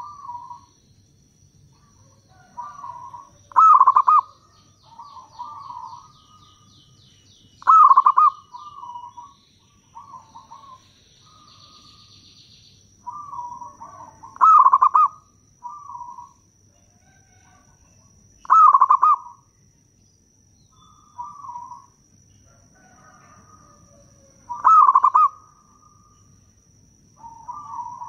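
Zebra dove (perkutut) singing its rolling, staccato coo: five loud phrases about every four to six seconds, with quieter cooing notes between them.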